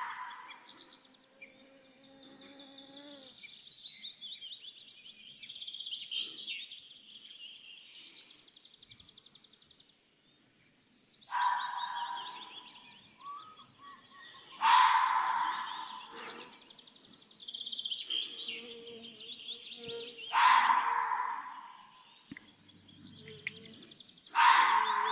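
Red fox barking: four loud barks, each about a second long, several seconds apart, over birds singing and trilling. A mosquito whines faintly near the microphone now and then.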